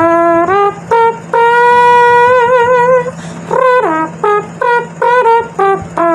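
A trumpet-like tune of short notes and one long held note, the held notes wavering with vibrato and some notes sliding up or down.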